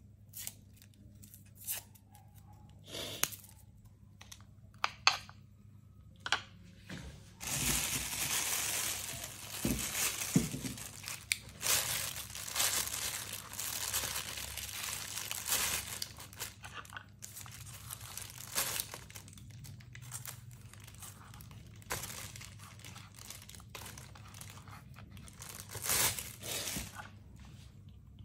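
Crinkling and tearing of dry, papery material being handled, with scattered clicks and knocks; the rustling is densest through the middle stretch.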